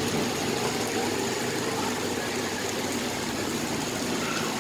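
Steady background noise of a street food stall at work: an even, continuous hiss with a low hum beneath it, and no distinct knocks or clatters.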